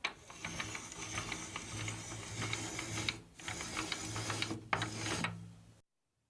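Small motor-driven tool running with rapid mechanical clicking and rattling over a steady hum. It dips briefly twice and stops abruptly near the end.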